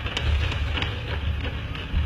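Fireworks going off: a dense low rumble of bursts, with several sharp cracks in between.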